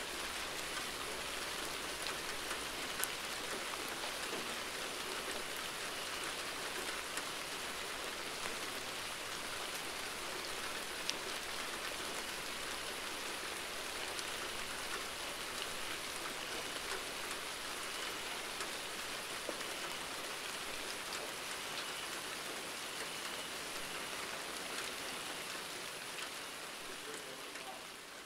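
Steady rain falling, with a few sharper single drop hits; it begins to fade out near the end.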